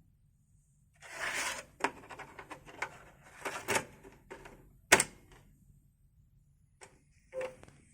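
Amiga 500's restored internal floppy drive at work just after power-on: irregular mechanical clicks and clunks of the read head stepping, with a brief rushing noise about a second in.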